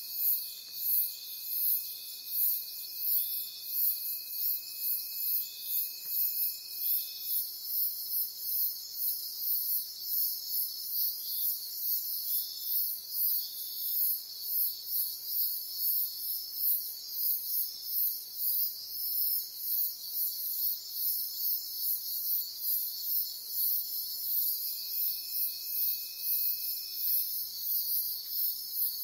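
Chorus of tropical forest insects such as crickets and cicadas: a very high trill pulsing a little more than once a second over a steady buzz. A thin steady whine runs through the first seven seconds and returns for a few seconds near the end.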